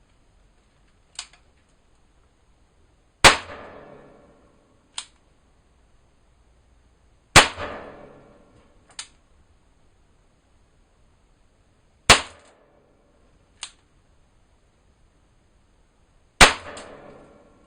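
Zoraki R1 Streamer revolver firing 6 mm Flobert rimfire rounds: four sharp shots a few seconds apart, each with a short ringing tail. A quieter click comes a couple of seconds before each shot.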